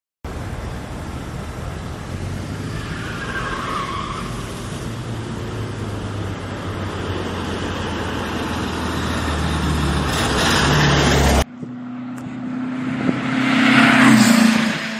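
Air-cooled VW Beetle engine running as the car drives, building steadily louder, then breaking off suddenly. A second stretch of engine sound follows, swelling and fading as the car goes by.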